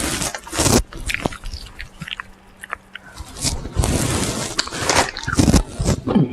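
Crunching and chewing of KFC fried chicken in the mouth: a run of irregular crisp crunches and bites.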